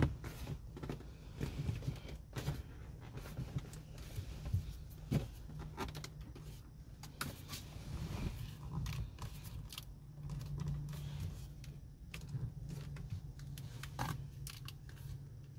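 Hand tapping, pressing and knocking on the dashboard top and steering wheel of a 2018 Audi A5 Cabriolet: irregular taps, knocks and clicks, over a steady low hum.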